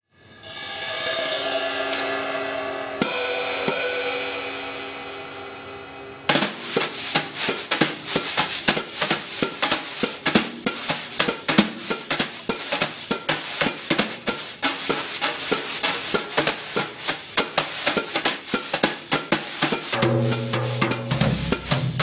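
Drum kit playing intro music. It opens with a long ringing cymbal-like swell, struck again about three seconds in. About six seconds in, a fast, busy beat of snare and hi-hat strikes begins, and lower sustained notes join near the end.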